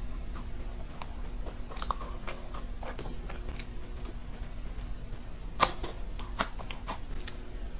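A shell-shaped macaron being bitten into and chewed close to the microphone, with crisp crackles as the shell breaks. The loudest crack comes about two-thirds of the way through.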